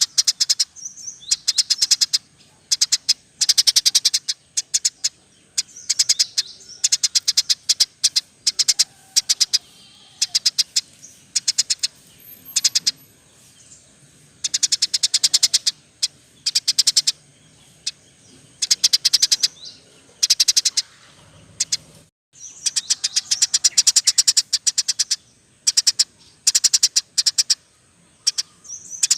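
Masteran birdsong recording combining canary, lovebird and Eurasian tree sparrow: dense bursts of rapid, high-pitched chirping and trilling, each a second or two long with short gaps between, and a brief break about 22 seconds in.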